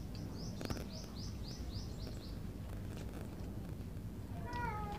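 A bird calling a quick run of about eight short, high chirps, about four a second, over a steady low background rumble. Near the end there is a short falling cry.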